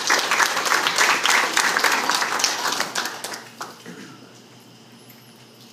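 Audience applauding, a dense patter of many hands clapping that dies away about two-thirds of the way through, leaving quiet room noise.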